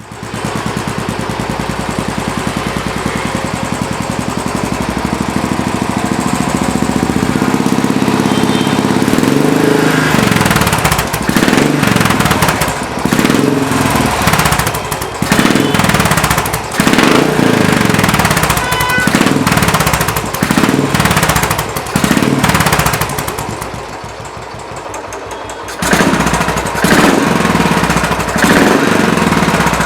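Royal Enfield 500 cc single-cylinder engine breathing through a Greasehouse Thumper free-flow aftermarket silencer. It idles with a steady thump for about the first third, then is revved again and again in short blips that rise and fall back. After a quieter spell it is blipped a few more times near the end.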